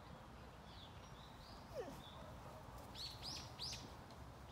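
Birds chirping faintly: a few short, high calls that drop in pitch, with a quick run of three about three seconds in, over a low steady outdoor rumble.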